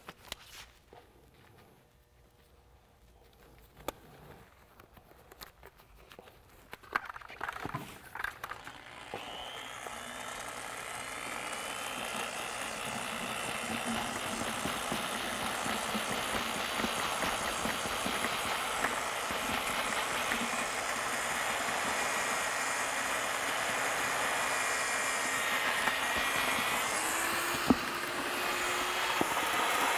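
A handheld paddle mixer drill starts up about nine seconds in and then runs steadily, churning semi self-leveling cement powder into water in a metal bucket. Before it starts there are a few knocks and clicks of the buckets being handled.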